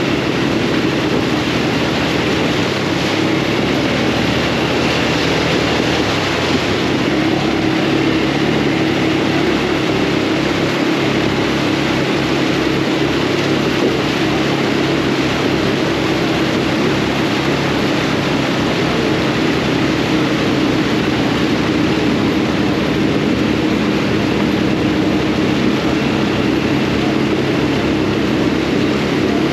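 Off-road buggy engine running at a steady speed while driving, a loud, even drone with a constant low hum.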